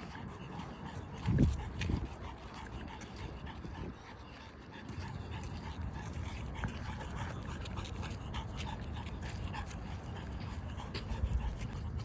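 Panting breaths close to the microphone, with a heavy low thump about a second and a half in.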